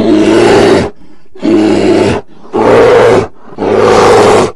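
A bear roaring four times in quick succession. Each roar is loud, deep and under a second long, with short pauses between.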